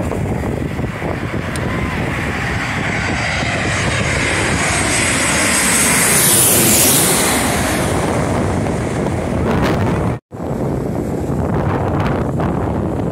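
Twin-engine jet airliner on final approach passing low overhead: the rumble and whine of its jet engines build to a peak about six to seven seconds in, then drop in pitch as it goes by. After a brief cut-out about ten seconds in, the jet noise goes on with wind on the microphone.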